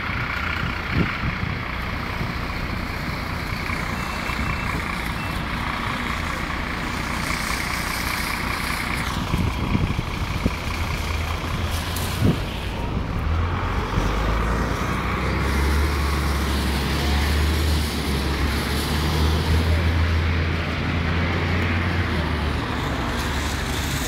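Road traffic on a city street: vehicles running past, with a deep, heavy engine rumble through much of the second half.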